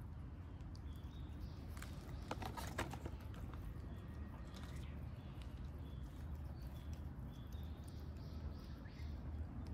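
Stray cats eating from a plate close by: wet chewing and licking, with a few small clicks against the plate bunched about two to three seconds in, over a steady low hum.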